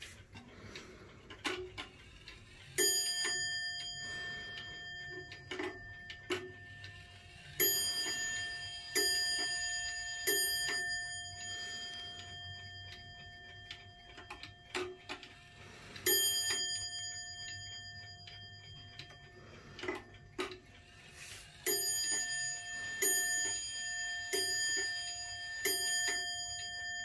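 Bell strike of a mini Comtoise wall clock with an 8-day German SBS movement, rung as its hands are moved round: a single stroke, then three strokes about a second apart, another single stroke, then four strokes. Each stroke rings on and fades, with the movement's ticking and clicks between.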